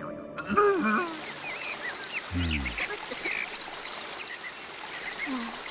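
Cartoon sound effects over a steady hiss like trickling water. Short high squeaky chirps come throughout, and one louder falling low tone about two and a half seconds in.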